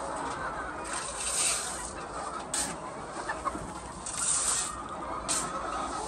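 Chickens clucking in a flock, with four short bursts of hiss-like rustling noise.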